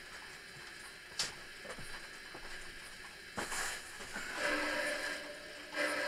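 Light clicks and knocks of an N gauge model locomotive being handled on the track, two sharp ones about a second in and halfway through, with a faint hum twice near the end. The engine has derailed and is not sitting on the rails properly.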